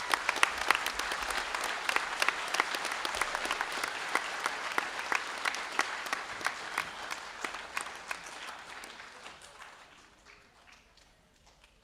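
Audience applauding, many hands clapping together, strong for about eight seconds and then dying away near the end.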